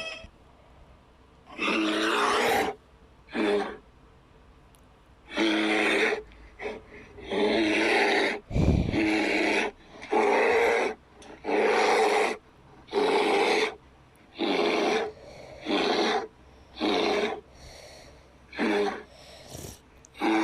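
Custom-made Godzilla creature sounds: a string of about a dozen short, pitched grunts and snorts, each under a second, with quiet gaps between them. A low thump sounds about eight and a half seconds in.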